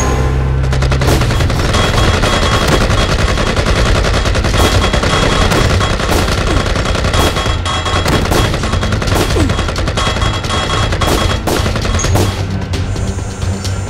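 Rapid, irregular gunfire: many sharp shots in quick succession from guns, thinning out near the end, over loud background music with a heavy bass.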